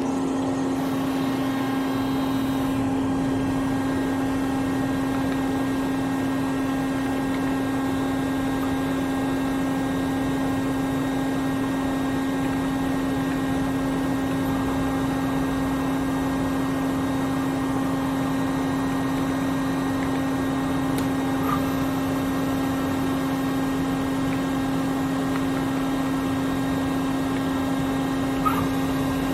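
CNC mill-turn center running under power, giving a steady machine hum with one strong constant tone and fainter tones above it. Two faint clicks come late on.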